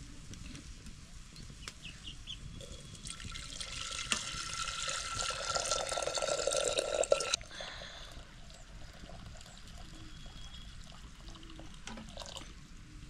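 Water being poured into a vessel for about four seconds, growing louder and then stopping suddenly, with faint dripping before and after.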